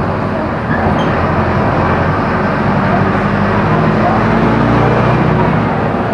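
Mercedes-Benz OF-1418 bus's diesel engine running under way, its steady drone climbing a little in pitch and loudness through the middle, as if the bus is pulling and gaining speed.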